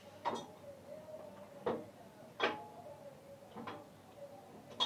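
Sharp knocks of kitchen handling at a sink, five of them at irregular intervals, over a faint steady hum.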